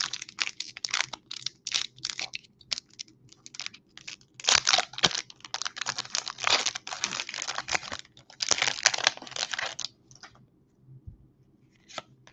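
Foil wrapper of a Pokémon Brilliant Stars booster pack being crinkled and torn open by hand: a rapid run of crackling rips, louder about four and a half and eight and a half seconds in, dying away about ten seconds in.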